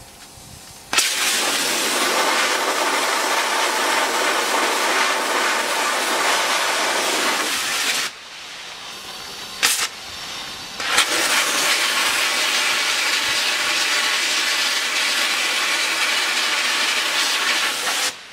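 Sandblaster nozzle blasting abrasive grit against a steel moped frame: a loud, steady hiss of air and sand. It starts about a second in, stops about eight seconds in, gives one short puff near ten seconds, then runs again from about eleven seconds until just before the end.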